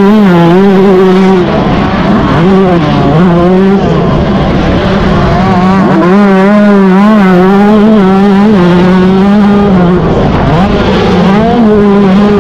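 Yamaha YZ125 two-stroke single-cylinder motocross engine revving hard under race riding, its pitch dropping briefly a few times as the throttle is rolled off or a gear is changed, then climbing back up.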